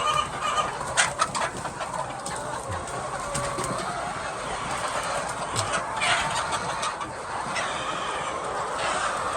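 A flock of chickens clucking and calling, many birds overlapping.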